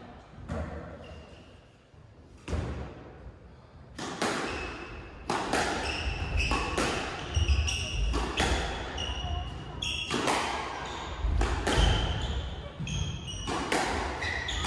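A squash rally on a wooden court: the ball struck by rackets and smacking off the walls in quick succession, starting about two seconds in, with short squeaks of court shoes on the floor between hits.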